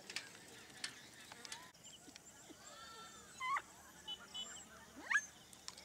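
Birds calling: scattered short chirps and two quick rising whistled calls, the louder one near the end, over faint outdoor background.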